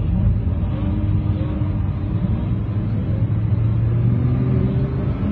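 Sports car engine running under load, a steady low drone whose pitch climbs as it revs, about two seconds in and again near the end, while the car slides through a bend.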